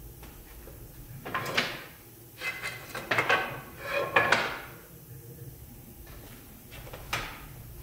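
Strips of ash and thermally treated ash sliding and scraping against each other as they are shuffled into place in a clamp rack. There are a few rubbing slides in the first half and a short one near the end.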